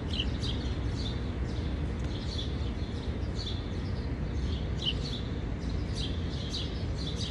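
Small birds chirping: short, high chirps repeating irregularly, often several a second, over a steady low rumble.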